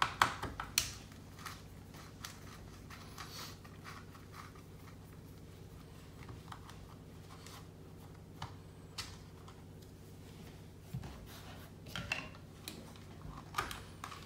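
Small plastic clicks, taps and rattles of hands and a hex driver working the screws and cover of an RC truck's plastic receiver box. A quick cluster of the loudest clicks comes in the first second and more come near the end, over a faint steady hum.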